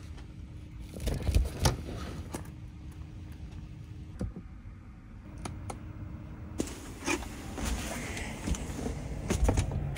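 Knocks, clicks and rustling of someone moving about inside a camper van and taking down a window cover, over a steady hum that stops about two-thirds of the way through.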